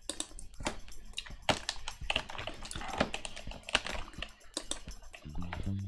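Computer keyboard and mouse being worked: irregular light clicks and taps, several a second. A low hum comes in near the end.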